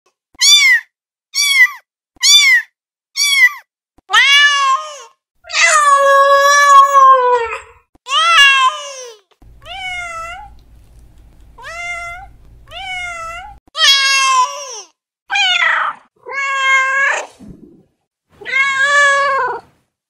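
Domestic cat meowing over and over, about fourteen meows: four short ones at first, then longer drawn-out ones, one lasting about two seconds. In the middle a few quieter meows sit over a low steady hum.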